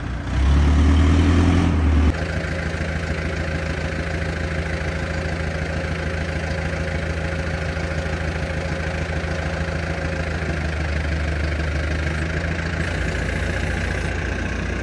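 Telehandler's diesel engine running: louder for the first two seconds, then idling steadily.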